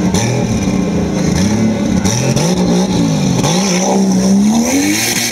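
Off-road tube-frame buggy's engine revving up and down over and over, about once a second, as it churns its tyres in a deep mud pit. Near the end it is held rising for a couple of seconds to a high peak, then drops back.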